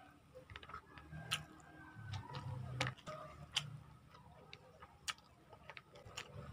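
Close-miked eating sounds from a meal of rice and milkfish eaten by hand off a banana leaf: irregular sharp clicks and smacks from chewing and from fingers pressing rice on the leaf, over a faint low hum.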